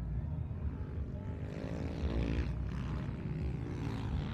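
Motocross dirt bike engines revving on the track, the pitch rising and falling, over a steady low rumble.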